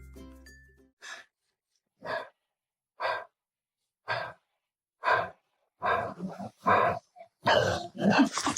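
Dog breathing noisily: short, loud breaths about once a second, coming quicker and louder near the end. The tail of background music fades out in the first second.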